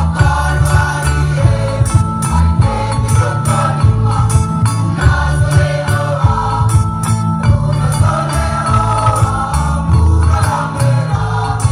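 Choir of mixed young voices singing together over amplified accompaniment, with heavy sustained bass notes and a steady percussive beat.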